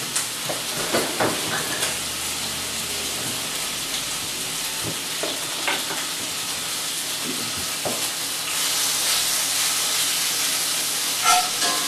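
Chopped bacon sizzling as it fries in a skillet, with a utensil now and then knocking and scraping in the pan as it is stirred. The sizzle grows louder about two-thirds of the way through, and there is a brief clank near the end.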